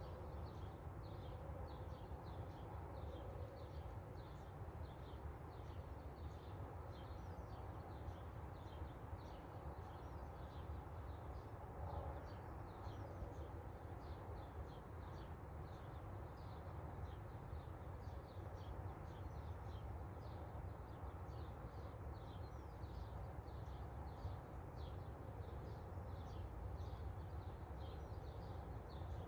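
Faint birds chirping, short high chirps coming several times a second without a break, over a steady low rumble.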